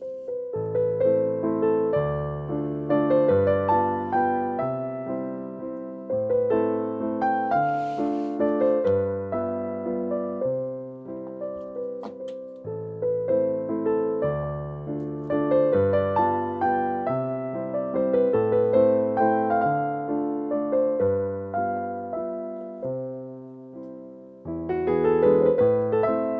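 Background piano music, a gentle melody of struck notes over a steady accompaniment.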